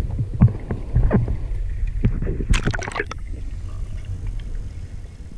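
Water splashing and sloshing against an action camera as a hand releases a fish at the surface beside the boat. About three seconds in the camera goes under and the sound turns to a dull, muffled underwater rumble.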